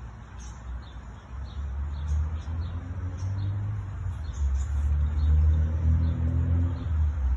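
Low steady rumble with a faint hum in it, growing louder about halfway through, with faint high chirping above it.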